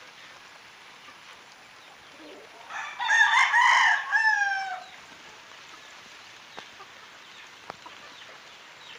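A game rooster crowing once, about three seconds in, for about two seconds, ending on a long falling note.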